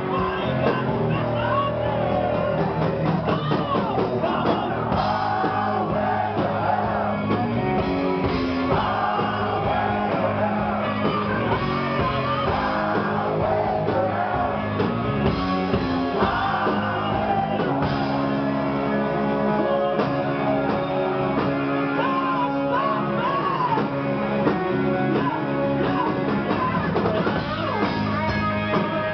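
Live rock band playing, with electric guitar and drums, and a man singing and shouting into a microphone over it.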